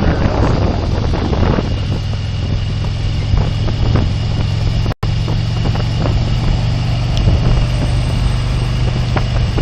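Motorcycle engine running steadily with wind buffeting the body-worn camera's microphone, the sound cutting out for an instant about halfway through.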